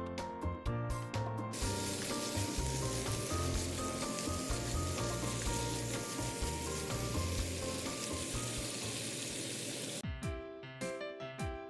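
Sliced pork sizzling in a hot frying pan, a dense steady hiss that starts about a second and a half in and cuts off suddenly near the end. Light background music plays throughout.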